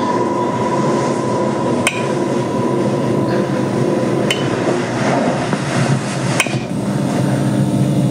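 Horror short film's end-credits soundtrack: a dense, steady drone struck three times by a sharp metallic hit, about every two seconds.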